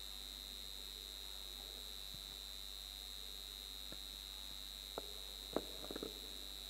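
A steady high-pitched electronic whine in a quiet pause, with a sharp knock about five seconds in and a short cluster of clicks and knocks about a second later.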